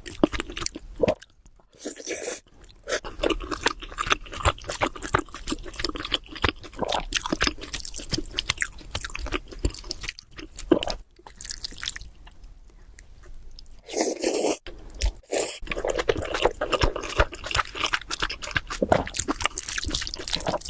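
Close-miked chewing and mouth sounds of someone eating spicy noodles: irregular wet smacks and clicks, with a couple of longer noisy stretches about two seconds in and again around fourteen seconds.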